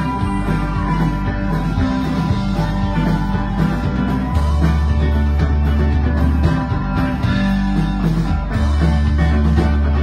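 Live alt-country rock band playing: banjo, electric guitar and drum kit, with deep bass notes held for a couple of seconds at a time.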